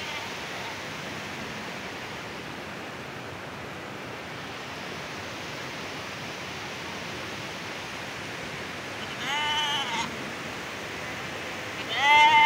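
Two bleats from the passing herd of goats and sheep: one about nine seconds in and a louder one near the end. A steady rush of running stream water lies under both.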